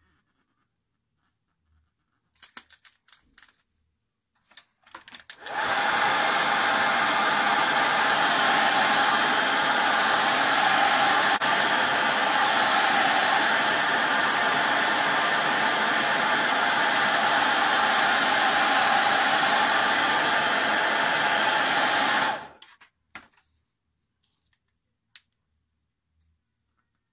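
Hair dryer blowing steadily, switched on about five seconds in and cut off a few seconds before the end, aimed at the border tape to warm and soften its adhesive for peeling.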